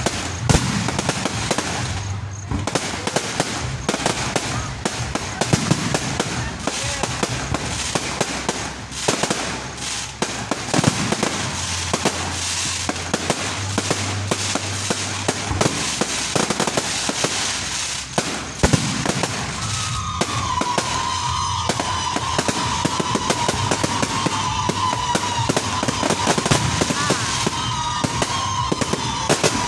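Aerial fireworks going off in a dense barrage, many bangs and crackles in quick succession. About two-thirds of the way through, a steady wavering high tone joins in and carries on.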